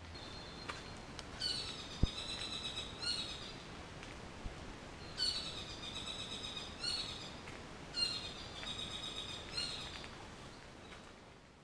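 A bird singing in forest, three phrases of rapid repeated ringing notes, each about two seconds long. There is a brief thump about two seconds in.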